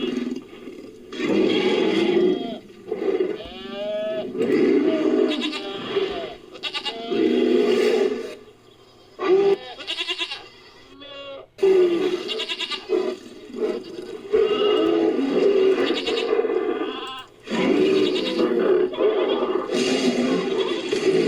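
Series of invented creature calls edited together from animal recordings, led by goat and sheep bleats: pitched, wavering cries a second or two long, separated by short pauses.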